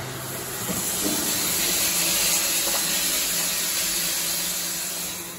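Water pouring into a stainless steel storage tank past its float valve, a steady hiss that eases off near the end.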